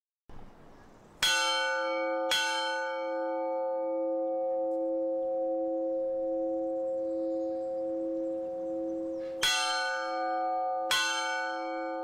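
A church bell struck four times, in two pairs of strokes about a second apart with a long pause between the pairs, each stroke leaving a long ringing hum that carries on until the next.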